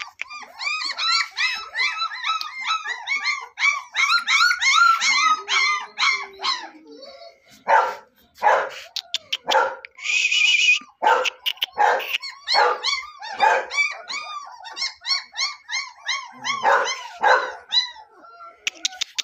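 Long-coated German Shepherd puppies yipping and whining in a quick run of short, high, arched calls, then giving louder short yelping barks from about eight seconds in, with a brief high squeal a little after ten seconds.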